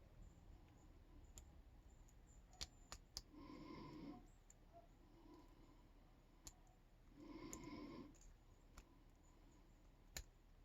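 Faint, scattered clicks and ticks of lock picks working the pins of a Yale K300 padlock during single-pin picking. A soft rushing sound also comes back about every four seconds.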